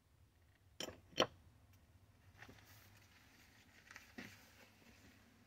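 Two sharp knocks of small metal engine parts set down on a plywood workbench, close together about a second in, followed by a few fainter clicks and knocks from handling the parts.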